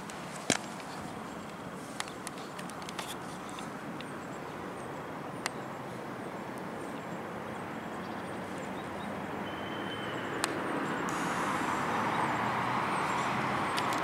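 Outdoor background noise that swells over the last few seconds, as of a vehicle drawing closer, with a few sharp clicks scattered through it and one brief faint chirp near the middle.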